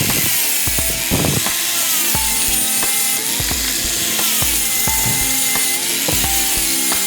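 Background music with a steady beat and a gliding melody.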